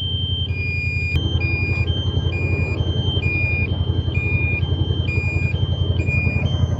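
DJI drone controller alarm: two beeping tones, one higher and one a little lower, alternating about twice a second, over the steady low running of a UTV engine. The alarm goes with the drone's critically low battery warning.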